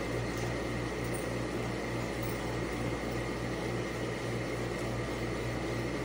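Steady background machine hum with a regular low throb and a faint high whine held steady throughout.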